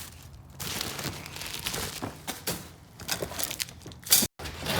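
Paper and plastic packaging rustling and crinkling as parts are handled, with scattered sharp clicks and knocks.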